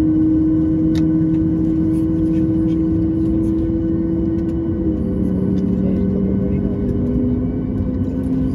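Jet engine hum heard inside the cabin of a Boeing 737-8 MAX on the ground: a steady drone of several held tones over a rushing noise, with the tones shifting in pitch about five seconds in and again near the end.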